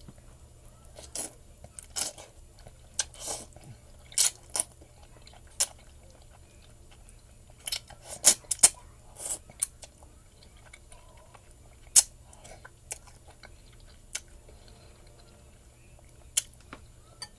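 Close-miked eating sounds of a person eating instant ramen noodles: irregular wet mouth smacks and slurping clicks, clustered in two busy stretches with a sharp single smack about 12 seconds in.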